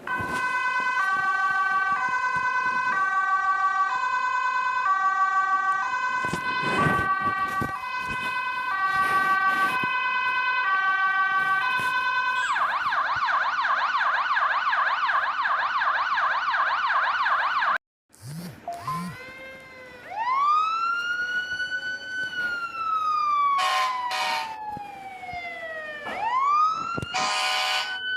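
Electronic emergency-vehicle siren working through its tones: a hi-lo two-tone alternating about twice a second, then a fast warbling yelp, then after a brief cut-out a slow rising and falling wail. A few short horn-like blasts sound over it, the loudest near the end.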